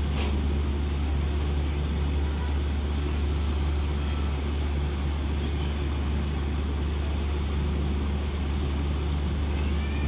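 Diesel engine of a hydra mobile crane running steadily with a low hum while the crane holds a generator set on its hook.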